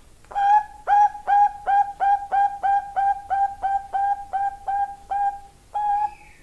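Female zebra dove (perkutut) of the Bangkok line singing its long song: a rapid run of about fifteen short coos, each sliding up into a clear held note, roughly three a second, ending with one longer coo after a brief pause.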